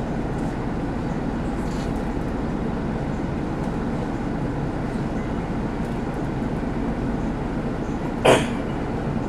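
Mercedes-Benz OC500LE city bus idling, heard inside the passenger cabin: a steady low engine rumble. A single short, sharp noise stands out near the end.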